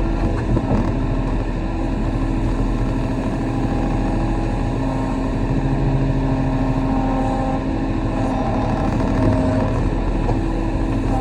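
Kobelco SK35 mini excavator's diesel engine running steadily under work, its pitch shifting slightly now and then.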